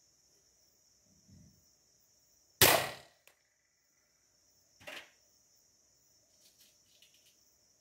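A single shot from a Norica Shooter 5.5 mm spring-piston air rifle: one sharp crack with a short decay, followed about two seconds later by a duller knock. Crickets chirp steadily throughout.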